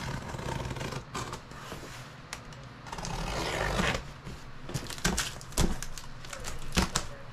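A large cardboard shipping box being handled and opened: scraping and rustling, with several sharp knocks and clicks in the second half.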